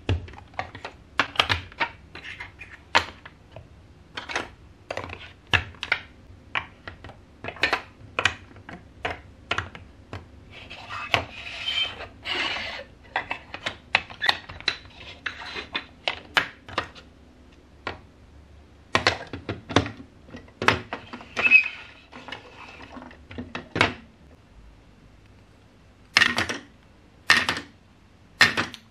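Large plastic building blocks and marble-run track pieces being handled and pressed together: a long run of sharp plastic clicks and clacks, with a stretch of rattling and scraping about a third of the way in. After a brief quieter spell near the end come a few louder clacks.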